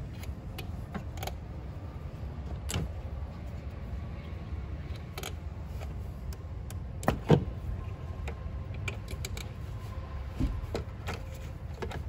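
Rubber spark plug wire boots being pulled off and snapped onto the towers of an ignition coil pack, heard as a scattering of short plastic clicks and rubs. The loudest is a pair of clicks about seven seconds in, over a low steady rumble.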